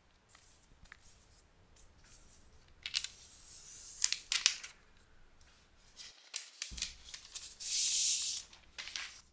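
Unwrapping and opening a MacBook Air box: scattered crinkles, clicks and rustles of plastic wrap and cardboard, with a longer hissing sound of just under a second about eight seconds in.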